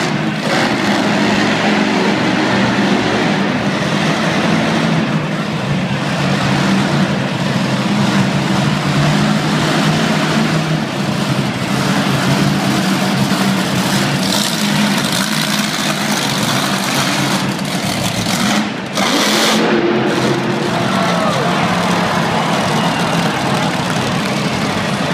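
Monster truck engine running loud and steady as the truck drives around the dirt arena floor, dropping off briefly about two-thirds of the way through.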